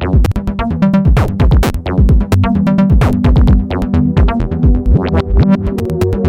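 Background electronic dance music with a steady drum-machine beat.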